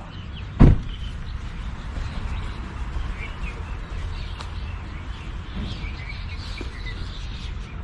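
Birds chirping faintly over a steady low rumble, with a single sharp thump about half a second in.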